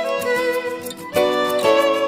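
Background music: melodic instrumental with string-like notes changing every half second or so.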